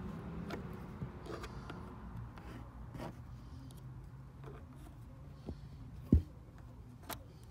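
Faint scattered clicks and scrapes of a screwdriver tip working a round plastic trim fastener in a car's trunk floor, over a low steady rumble. One dull thump about six seconds in.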